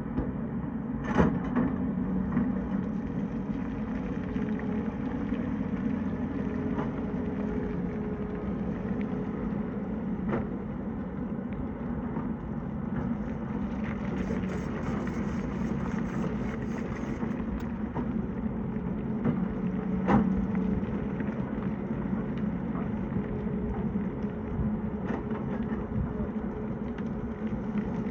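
Tata Hitachi excavator's diesel engine running steadily at working revs, with a few sharp knocks as the bucket strikes rock, the loudest about a second in and about twenty seconds in.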